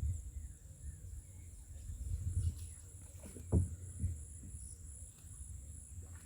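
Steady high-pitched chirring of insects, like crickets or cicadas, over a low, uneven rumble, with one short low thump about three and a half seconds in.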